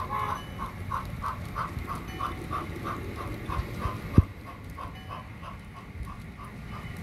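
Model 2-8-0 Consolidation steam locomotive's onboard sound chuffing steadily, about three chuffs a second, through its small speaker. One sharp knock about four seconds in.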